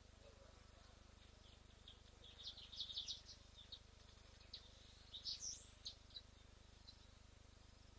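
Wild birds chirping in two bouts of quick, high chirps, about two and five seconds in, over a faint steady background hiss.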